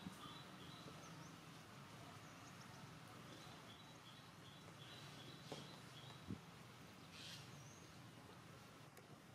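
Near silence: faint outdoor ambience with runs of soft, short high chirps and a couple of light clicks.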